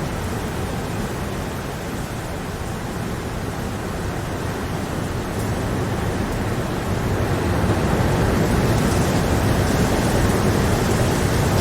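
Steady rain, an even dense hiss with no distinct drops or thunder, growing somewhat louder about halfway through.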